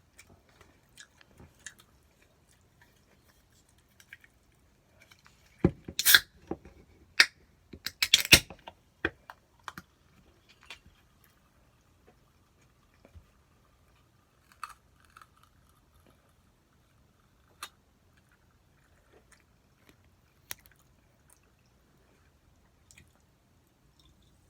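Someone eating a meal of spicy stir-fried pork: faint chewing and scattered sharp clicks, with a burst of loud clacks from about six to nine seconds in.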